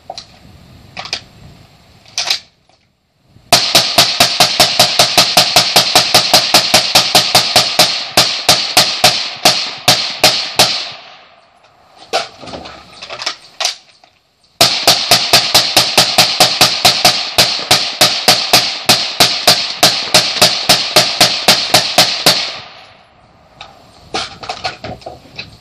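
Suppressed Bushmaster ACR rifle in rapid semi-automatic fire: two long strings of shots at about four or five a second, with a pause of a few seconds and some handling clicks between them.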